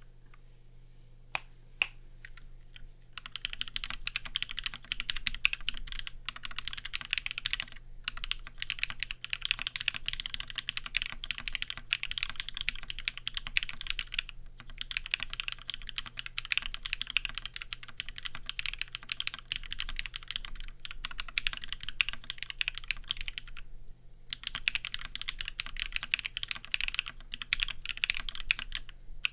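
Typing on a Linworks x TGR Dolice Alice-layout mechanical keyboard with BSUN switches on an aluminium plate and Linworks retro keycaps: a couple of single key presses, then about three seconds in, continuous fast typing, with brief pauses a few times.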